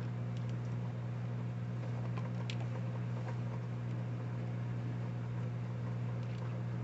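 Steady low machine hum, even in level throughout, with a few faint small clicks.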